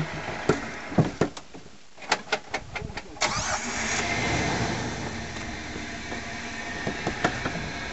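Jeep Wrangler's engine running under load as it crawls up a rock ledge, with a string of sharp knocks and clicks from the tyres and chassis on the rock in the first three seconds. About three seconds in, the engine note rises sharply as the driver gives it throttle, then slowly eases back.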